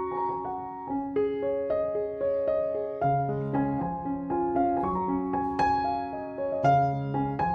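Background piano music: a melody of single notes changing about every half second over lower held notes.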